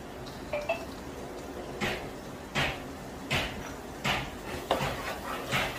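Boiled chickpeas cooking in spiced oil in a wok: a low steady sizzle with a short, soft sound from the pan about every second.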